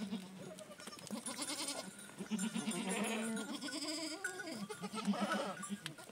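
Goats bleating repeatedly, several calls overlapping one another.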